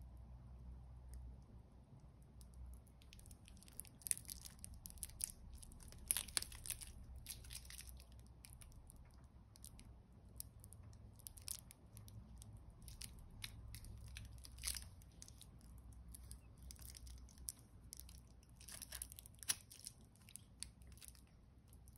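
Faint handling noise: crinkling of clear protective plastic film and light clicks of steel bracelet links as a watch is turned in a cloth-gloved hand, over a low steady hum. The crackles come in clusters, busiest about four to seven seconds in and again near the end.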